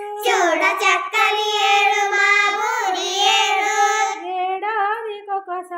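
A child singing a line of a Telugu lesson song in a high voice. The singing is louder and brighter for most of the line, then softer near the end.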